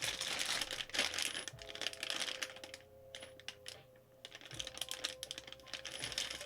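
Quick, busy clicking and rattling as the metal pole, L brackets and bolts of a monitor arm are handled and fitted together, loudest in the first two seconds and again near the end. Background music plays underneath.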